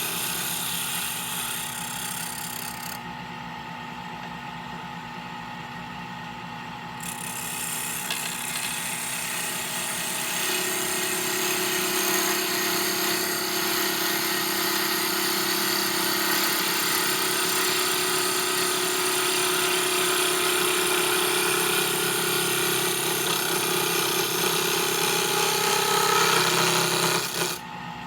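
Rockler Excelsior 5-speed mini lathe running, with a hand-held turning tool cutting and scraping a spinning wooden file-handle blank over the steady hum of the motor. The cutting noise drops away for a few seconds early on, then comes back louder.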